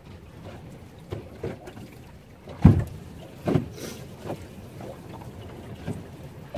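Wind buffeting the microphone on a small boat on choppy water, with irregular low thuds, the loudest about two and a half seconds in and another a second later.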